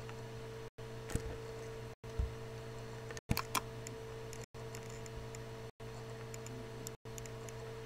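A few sharp computer mouse clicks in the first four seconds over a steady electrical hum. The hum cuts out to silence for an instant about every second and a quarter.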